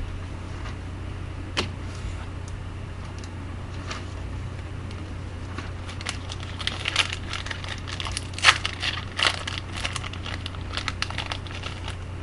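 Foil wrapper of a trading card pack crinkling and tearing as it is opened, with the cards being handled: irregular crackles that grow busier in the second half, the loudest about two-thirds of the way in, over a steady low hum.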